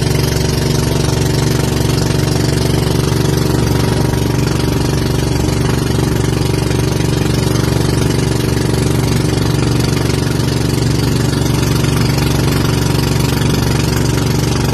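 Boat engine running steadily at constant speed, a loud even drone that doesn't change in pitch.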